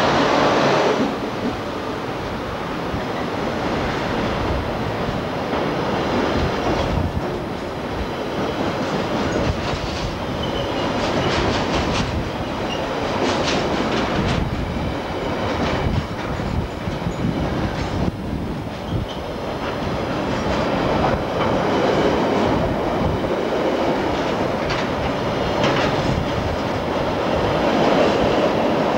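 A Class 60 diesel freight locomotive passes, loudest in the first second, followed by its long train of loaded refuse-container wagons rolling by. The wheels clatter steadily over the rail joints, with a faint wheel squeal around the middle.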